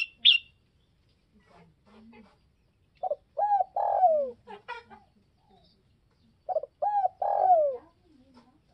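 Spotted dove cooing: two phrases about three seconds apart, each a few short coos ending in a longer falling coo. Two short, sharp high chirps come right at the start.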